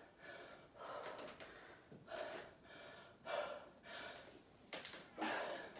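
A woman breathing hard from exertion during a dumbbell workout: loud gasping breaths in and out, about one a second.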